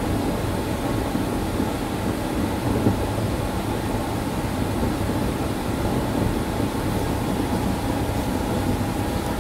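Steady machine noise, a low rumble and hiss with a faint constant whine above it, unchanging throughout.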